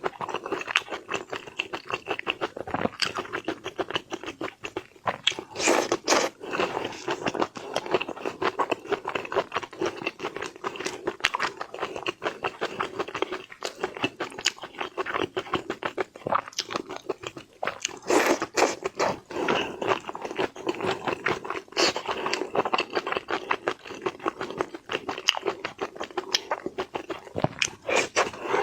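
Close-miked chewing and crunching of shrimp: rapid wet mouth clicks and crackling bites, many a second.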